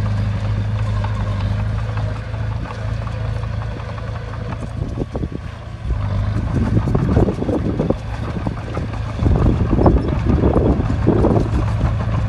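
Bulldozer's diesel engine running with a steady hum, joined over the second half by louder, irregular rumbling gusts of noise.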